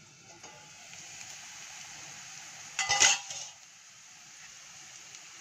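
Faint sizzling of chopped onions frying in a steel kadhai, with a single short ringing clink of steel cookware about three seconds in.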